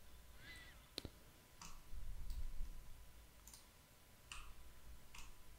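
Faint computer mouse clicks: one sharper click about a second in, then about five softer clicks spaced roughly a second apart, over a faint steady electrical hum. A brief low rumble around two seconds in is the loudest moment.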